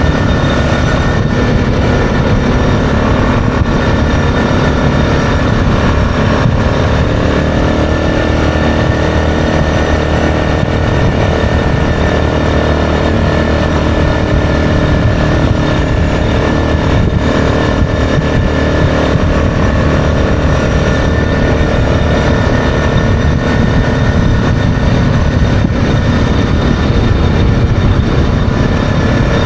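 Yamaha Grizzly 660 ATV's single-cylinder four-stroke engine running steadily under way at cruising speed.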